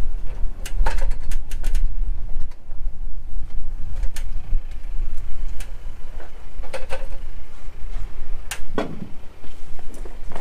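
Aluminium ladder and a large plastic sheet being carried up it: scattered knocks and clicks of feet on the rungs and the sheet bumping and flexing, with a heavier knock a little over halfway through, over a steady low rumble.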